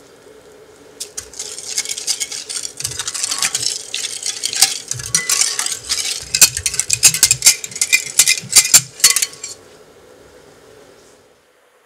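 Wire whisk stirring hot milk with sugar and gelatine powder in a glass bowl, the wires swishing through the liquid and clicking rapidly against the glass. The whisking starts about a second in and stops near the end.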